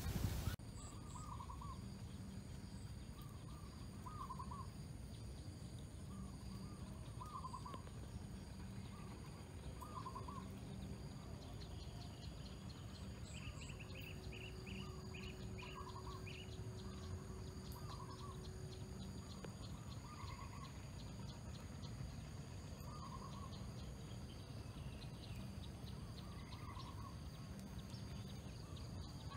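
Evening rural ambience: a bird repeating a short curved call every two to three seconds, with a quick run of higher chirps a little before the middle. A steady high-pitched hum runs behind it.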